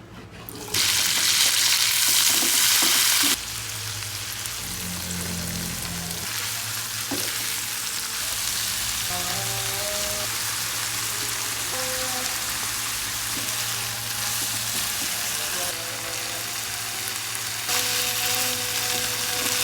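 Food frying in hot oil in a pan, a steady sizzle. It jumps much louder about a second in, drops back after about three seconds, and grows louder again near the end.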